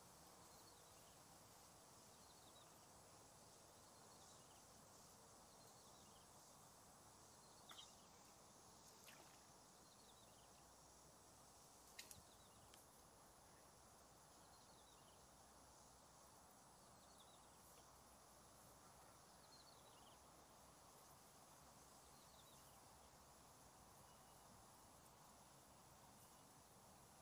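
Near silence: faint outdoor ambience with faint high chirps every couple of seconds and a few soft clicks.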